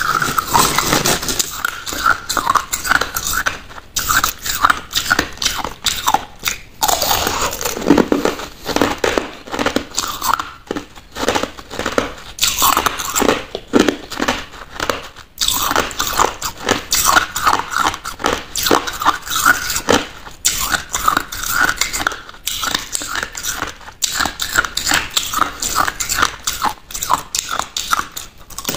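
Crushed ice being bitten and chewed close to the microphone: a loud, rapid run of crunches and cracks, with brief breaks every few seconds between bites.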